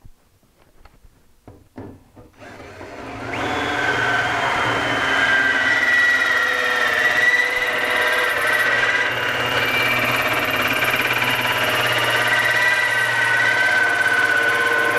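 Ryobi cordless drill turning a 1-inch Ideal hole saw through the sheet-steel side of an electrical enclosure. A few light clicks come first as the saw is set on the mark. From about three seconds in there is a steady, loud cutting screech with a high ringing squeal over the drill motor's hum.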